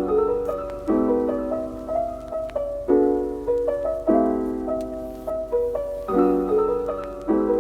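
Background music: a soft piano track playing chords struck about once a second.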